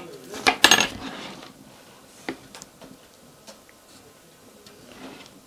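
A brief clatter of sharp clicks and knocks about half a second to a second in, then a few faint scattered ticks.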